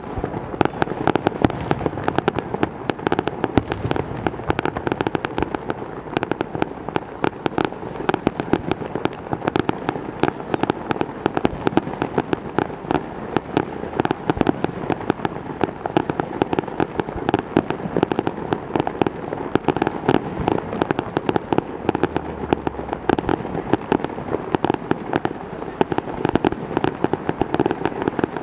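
Fireworks display: a dense, unbroken barrage of aerial shell bursts and crackle, with sharp bangs coming many times a second.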